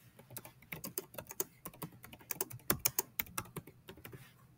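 Computer keyboard typing: a steady run of irregular key clicks, several a second, as a short sentence is typed.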